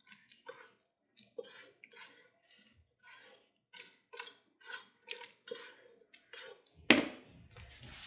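Saucy macaroni and cheese being scraped out of a pan with a spatula into a foil pan: a run of short, soft wet squelches and scrapes, about two a second. A much louder clatter near the end.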